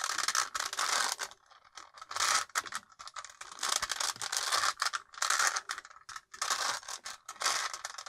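A 5x5 Rubik's cube's plastic layers clicking and rattling as they are turned in quick runs of moves, with short pauses between runs, while the last-layer corners are positioned by algorithm.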